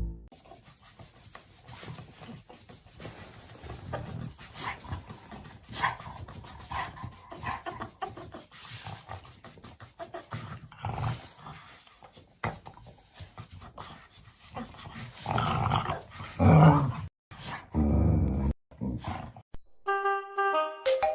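A dog making noises among scattered knocks and rustling, with louder bursts of dog sound about three quarters of the way through. Music starts near the end.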